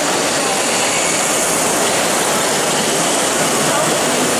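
Steady, loud din of a busy exhibition hall, with faint rising and falling whines from electric RC drift cars driving round the track.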